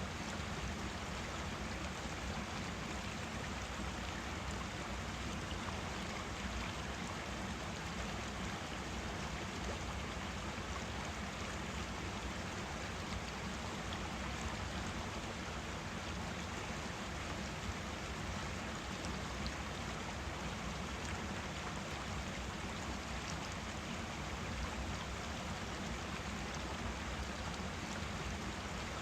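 Forest stream flowing steadily, a constant rushing of water with a deep low rumble.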